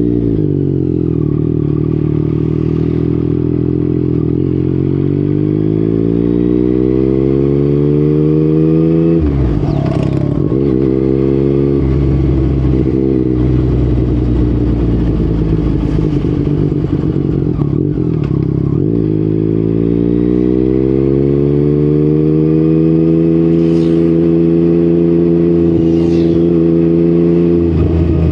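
Yamaha MT-09's crossplane inline-three engine through an Akrapovic exhaust, pulling hard with its pitch climbing steadily for about nine seconds. It then drops sharply as the throttle closes and runs unevenly at lower revs for several seconds. A second long rising pull follows and falls away again near the end.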